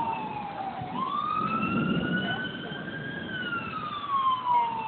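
Siren wailing, its pitch sliding slowly down and up: falling at first, sweeping up about a second in, climbing slowly to a peak past the middle, then falling again near the end. A low rumbling noise runs underneath.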